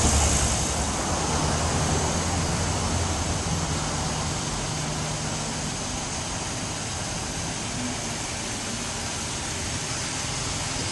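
2006 Chevrolet Avalanche's V8 engine idling steadily under a background hiss, its low hum growing fainter partway through.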